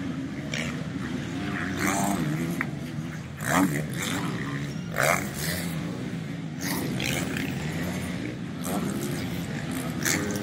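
Four-stroke motocross race bikes running on the track, engines revving up and down in pitch, with several short, loud bursts of throttle.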